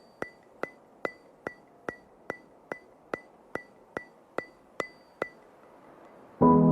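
Steady ticking, about two and a half sharp ticks a second, each with a short ringing tone, stopping a little after five seconds. Near the end, music with sustained keyboard chords begins.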